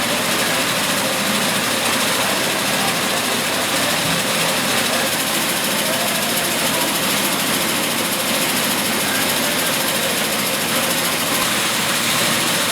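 Narrow fabric weaving machine running steadily: a loud, even mechanical noise that does not change.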